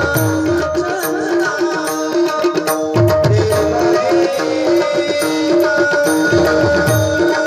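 Instrumental music of a Marathi bhajan: tabla playing a rhythmic pattern, with deep bass-drum strokes that slide down in pitch near the start, about three seconds in and again near the end. Underneath, a melodic instrument repeats a short figure.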